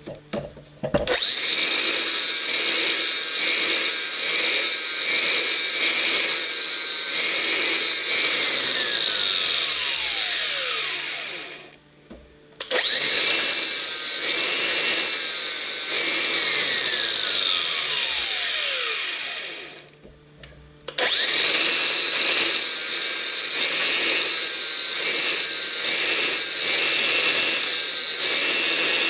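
Angle grinder with a flap disc grinding the cutting edges of a steel auger bit, run in three bursts. It is switched off twice and its whine falls as it spins down before starting up again.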